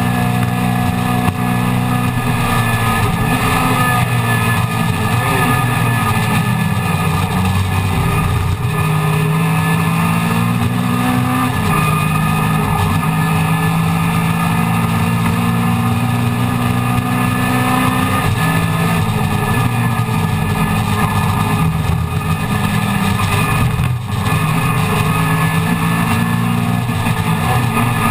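Classic Mini race car's four-cylinder A-series engine at racing speed, heard from inside the stripped cockpit. The engine note climbs and drops again and again as the car is driven through the gears and corners, over constant road and wind noise.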